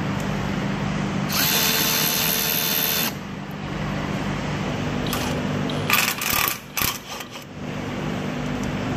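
Cordless ratchet whirring for about two seconds as it drives a fender liner screw, followed a few seconds later by a cluster of sharp clicks and knocks from handling the tool and fasteners. A steady low hum runs underneath.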